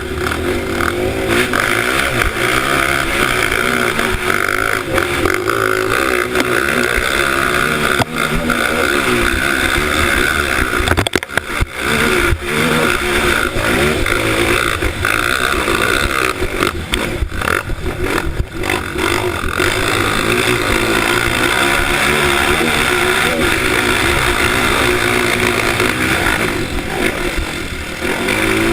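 Honda CRF motorcycle engine running and revving, its pitch wavering up and down, with a few brief dips in level around the middle.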